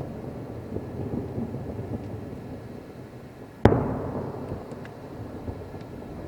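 Fireworks shells bursting in the sky: a continuous low rumble of bursts and their echoes, then one sharp, loud boom about three and a half seconds in that rolls away in echo, followed by a few faint crackles.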